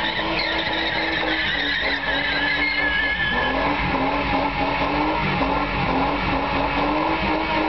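BMW E30 burning rubber: its rear tyres spin and squeal while the engine is held at high revs. The revs dip about three seconds in, then rise and fall repeatedly.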